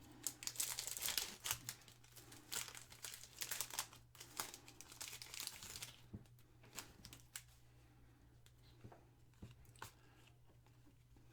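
Foil wrapper of a trading-card pack crinkling and tearing as it is opened, dense for about the first six seconds, then only a few scattered light clicks, over a faint steady hum.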